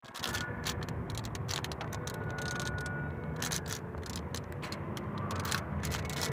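Clear plastic bag crinkling and rustling in a stream of irregular small crackles as hands work it open, over a steady low hum.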